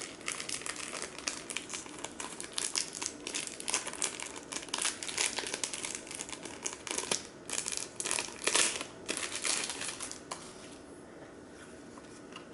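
Plastic packaging crinkling and rustling as a phone battery is unwrapped by hand, with sharp crackles throughout, dying down about two seconds before the end.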